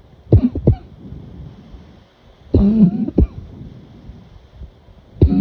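A person coughing in short bouts: two quick coughs, then a longer throaty cough followed by a sharp one, and another cough starting near the end.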